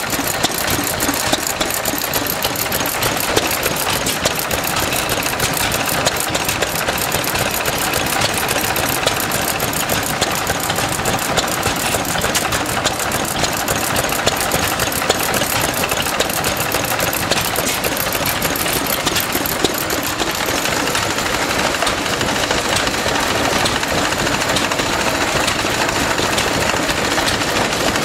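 Several small vintage stationary engines running together: a steady, fast mechanical clatter of ticking and firing.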